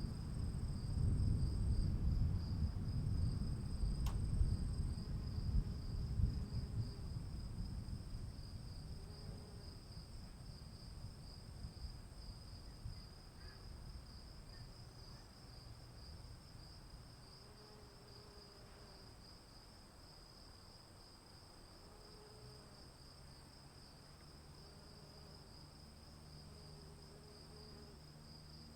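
Thunder rumbling and slowly dying away over about fifteen seconds, under a steady chorus of insects trilling.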